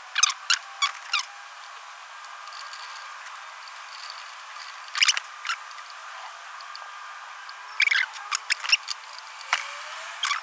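Small clicks and light ticks from hand-handling thermostat parts and their wires, in a few short clusters with quiet hiss between.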